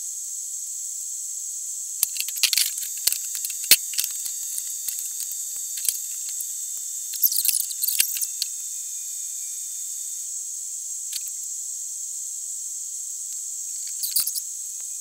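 Arc welding on a steel tube frame: short bursts of crackling and clicks about two seconds in, around eight seconds in and again near the end, over a steady high hiss.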